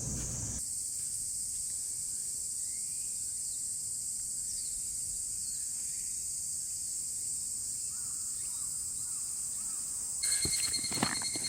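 Steady high-pitched chorus of insects in woodland, with a few faint bird chirps. About a second before the end the chorus grows louder, with a thin steady whine and a few knocks.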